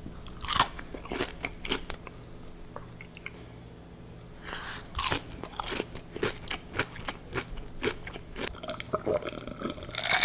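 Crunchy bites into fried mac and cheese balls, followed by close-up chewing of the crisp breaded crust. Two bites land about four seconds apart, each followed by a run of quick crackling chews.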